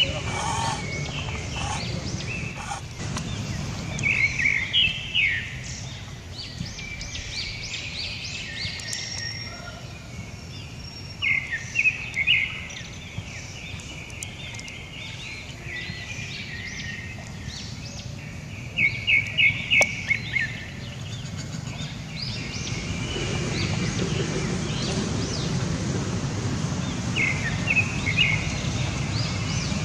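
Short high-pitched chirping calls in quick runs, coming in several bursts a few seconds apart, over a steady low background rumble that grows louder in the second half.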